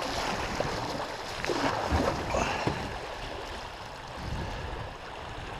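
Fast river water rushing and gurgling around a canoe running a riffle, with a cluster of louder splashes about two seconds in.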